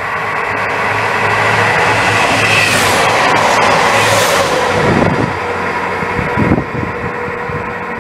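Electric commuter train passing close at speed. A rush of wheel and motor noise builds up, and its whine drops in pitch as the train goes by. A couple of sharp wheel clacks follow about five and six and a half seconds in, as the rear cars pass.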